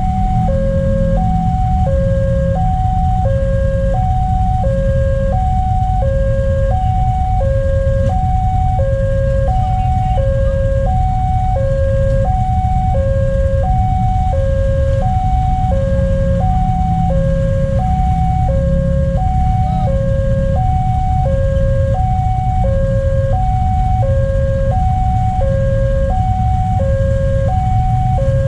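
Railway level-crossing warning alarm sounding continuously: an electronic two-tone signal alternating high and low about once a second while the barrier is down and the red lamp flashes, warning that a train is coming. Idling motorcycle and road-traffic engine rumble underneath.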